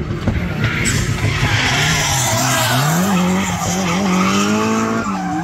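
Nissan S14 drift car with an RB25 straight-six engine drifting, the engine held at high revs while the rear tyres skid with a loud hiss. The engine note climbs about three seconds in, holds, and drops near the end.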